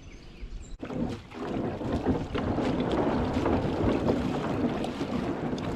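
Wind buffeting the microphone over the water sounds of a kayak on a river, with scattered small knocks; it cuts in sharply about a second in and then runs steadily.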